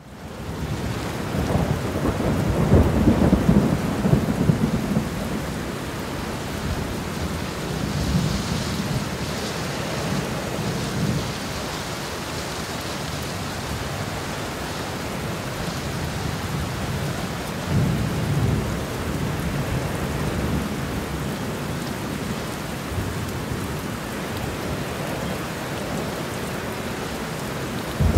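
Steady rain falling, with low rumbles of thunder that swell and fade several times, the strongest a few seconds in.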